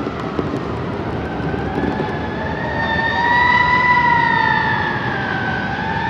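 Emergency-vehicle siren wailing slowly up and down, loudest about four seconds in, over a steady hiss of city street traffic.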